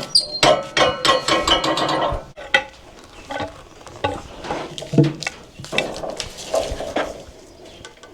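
Rapid metallic clinks and clanks with short ringing tones, thick for the first two seconds, then scattered knocks.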